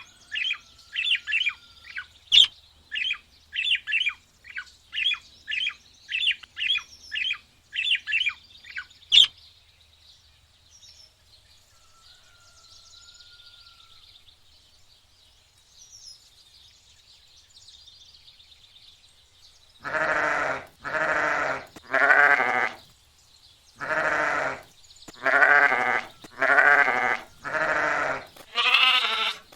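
A young bird peeping rapidly, high thin calls about two a second, for the first nine seconds. After a quiet spell, a goat bleats over and over from about twenty seconds in, about eight long wavering bleats.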